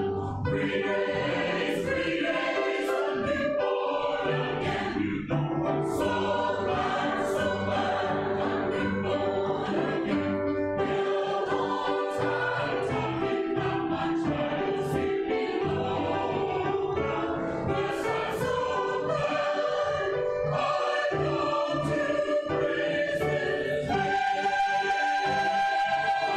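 Church choir of mixed men's and women's voices singing an anthem. About three seconds before the end the texture changes to long, steady held chords.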